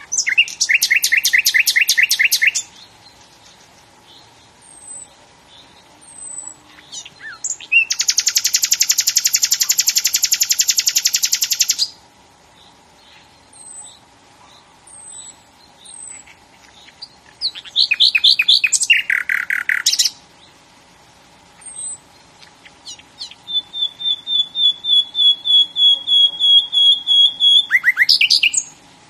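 A songbird singing loud, rapid trilled phrases in four bouts, each about two to five seconds long. The last bout is a long run of quick repeated notes on one pitch. Short, high single chirps fall in the pauses between the bouts.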